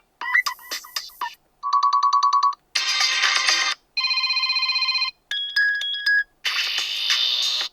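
HAFURY G20 smartphone's default ringtones previewed one after another, each cut off after about a second: six different short electronic melodies and tones, two of them rapid trains of beeps.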